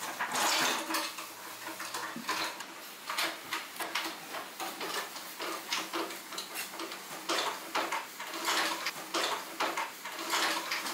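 Kitchen clatter: dishes and cooking utensils clinking and knocking again and again, over a faint steady hum.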